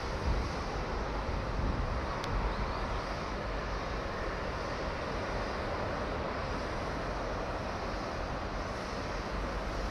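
Steady outdoor background noise: a low rumble under an even hiss, with one faint click about two seconds in.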